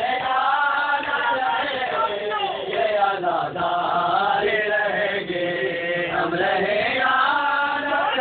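Men's voices chanting a Shia Muharram mourning lament (noha), a sustained, melodic chant that carries on without a break.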